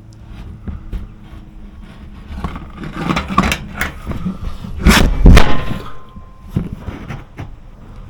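Handling noise: a run of irregular knocks, clunks and scrapes as objects are moved and set down, with the loudest heavy thumps about five seconds in.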